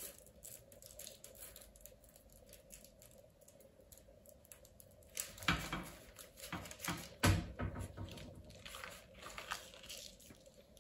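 Baking parchment rustling and crinkling as puff pastry strips are twisted by hand and laid on a paper-lined baking tray, with the loudest crinkles a little past the middle. A faint steady hum lies underneath.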